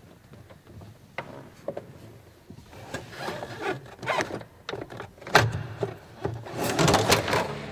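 Clicks, knocks and rubbing from a small aircraft's cockpit as the pilot settles into the seat and works a red-handled hand lever. The handling grows busier in the second half, with the sharpest click about two-thirds through.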